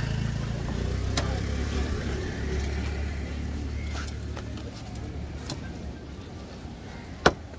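A vehicle engine runs with a low hum that fades away over the first few seconds, with a few light knocks. Near the end a heavy cleaver chops sharply into a fish on the wooden chopping block.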